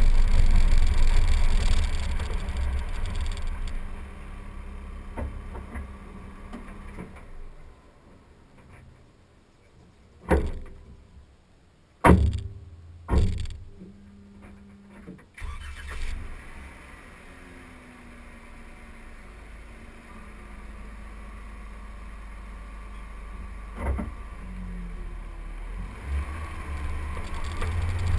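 Road and wind noise of a 2012 Jeep driving on a gravel road, heard from a camera mounted outside on its front fender: a steady low rumble that fades for a while, with a few sharp knocks around ten to sixteen seconds in and another near the end, before the rumble builds up again.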